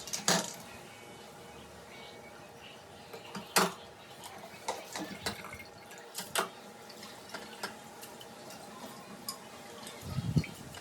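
Kitchen sink work: water dripping and trickling, with a few sharp clinks and knocks of dishes and pots.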